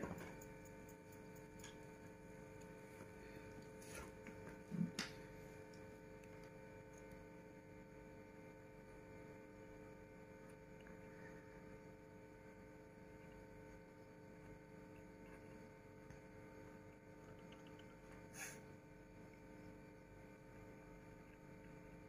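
Near silence: a faint steady electrical hum, with a brief knock about five seconds in and a couple of faint ticks.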